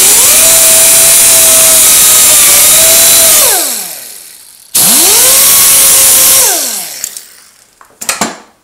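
Hand-held die grinder with a small abrasive disc grinding the end of a brass pin held in a lathe chuck. It runs at full speed with a steady high whine and hiss for about three seconds, then winds down. It is started again almost at once with a quickly rising whine, runs about two seconds and spins down. A couple of sharp clicks follow near the end.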